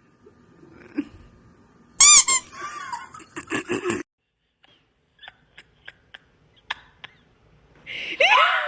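A loud, high-pitched squeak about two seconds in, falling in pitch, followed by a short jumble of sounds and then a few scattered clicks.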